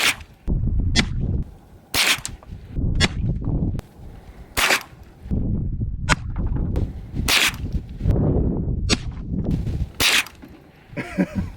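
Marlin .22 rifle firing a string of about nine sharp shots, roughly one to one and a half seconds apart, at pumpkin targets, with a low wind-like rumble between shots.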